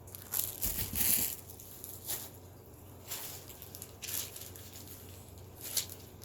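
Plastic packaging rustling and crinkling as it is handled, in short scattered bursts about once a second, the loudest with a soft bump about a second in.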